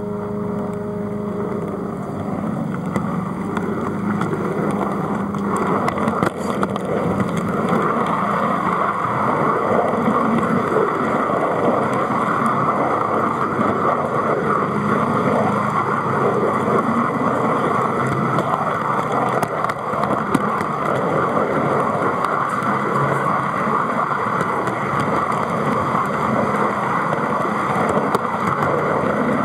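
O gauge model train running along the track, heard from the wagon it propels: a steady rumble and rattle of wheels on the rails with the Hudswell Clarke model loco's motor, getting louder over the first several seconds as it gets under way, with occasional faint clicks.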